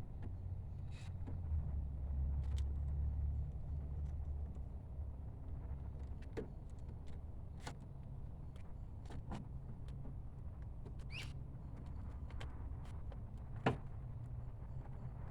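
Scattered light clicks and taps of hand work on a car's interior door handle and latch rod, over a low steady rumble that swells for a couple of seconds near the start. One sharper click comes near the end.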